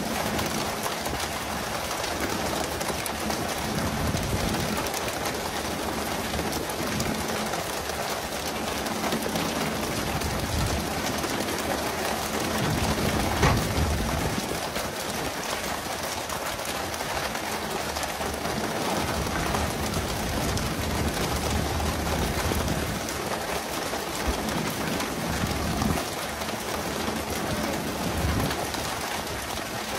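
Steady hiss and splashing of water sprays hitting the sea beside a pole-and-line tuna boat, sounding like heavy rain, with a low engine hum underneath. A short thump stands out about halfway through.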